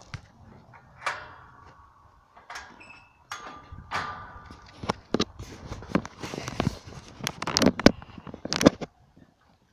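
A wire-mesh gate rattling and clanking as it is handled and opened, with a few short squeaks and a run of irregular knocks.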